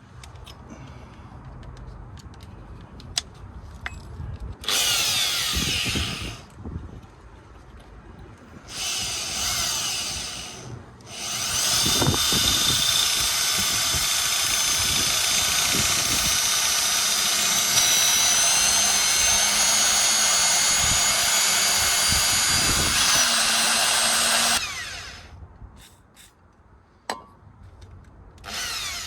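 Power drill boring a pilot hole into a badly rusted steel driveshaft nut, since the nut cannot be undone. It runs in two short bursts and then one long steady run of about twelve seconds that stops abruptly.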